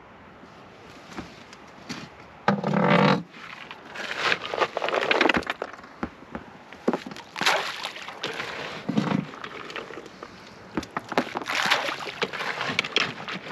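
Irregular knocks, scrapes and rustling of fishing gear being handled in a small boat, the loudest clunk about two and a half seconds in.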